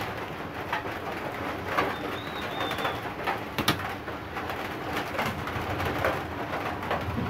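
Scattered sharp clicks and light knocks as a replacement flyback transformer is handled and set into a CRT TV chassis circuit board, over a steady low cooing in the background.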